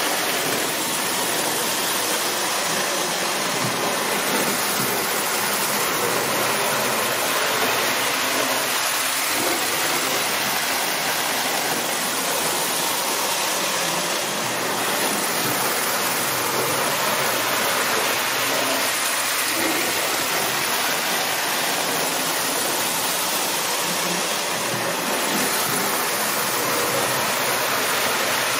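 Marx toy trains running on tinplate track at half throttle: a steady, even rumbling noise of the locomotives' motors and wheels.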